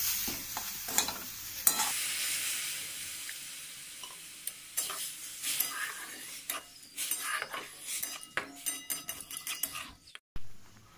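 Milk poured onto hot roasted semolina in a metal wok sizzles, starting about two seconds in and fading over the next couple of seconds. A metal spatula then scrapes and clinks against the pan as the mixture is stirred, until a brief break near the end.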